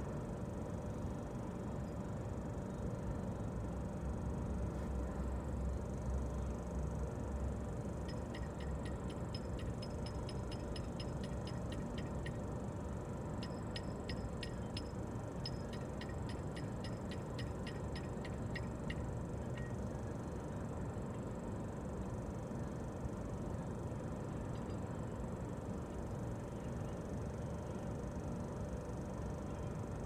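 Steady low vehicle rumble. From about 8 to 19 seconds in, runs of rapid ratchet clicks come at about four or five a second, from a ratcheting wrench being worked on the car's lug nuts.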